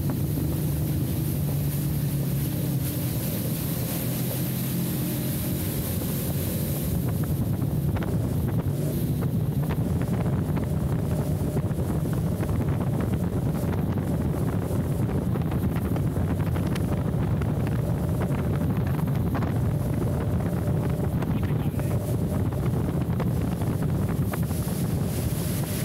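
Evinrude 150 HP two-stroke outboard running steadily at planing speed, with the hull's wash and wind buffeting the microphone.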